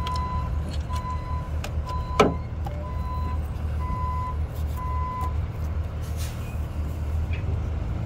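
A vehicle engine running with a low steady rumble. An electronic beep at one pitch repeats about once a second and stops about five seconds in. One sharp metallic clank comes about two seconds in.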